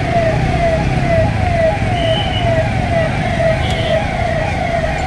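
Siren of a police vehicle sounding in a fast repeating cycle, each cycle falling in pitch, about two cycles a second, over a low rumble of traffic.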